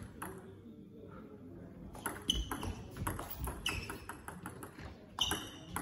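Table tennis rally: the celluloid-type ball clicking sharply off the bats and table in quick succession from about two seconds in, after a couple of single clicks near the start.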